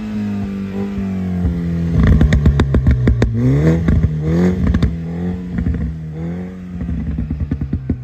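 Modern MINI hatchback's engine and exhaust held at high revs for a sound-level reading. The pitch dips a little about three seconds in and climbs back. Runs of sharp crackles and pops from the exhaust come in the middle and again near the end.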